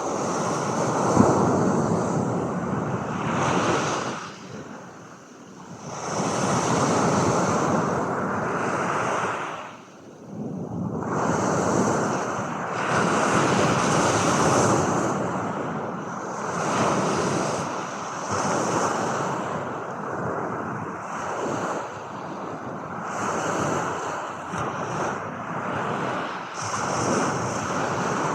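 Ocean surf: waves washing in and drawing back, the rush of water swelling and falling away every few seconds.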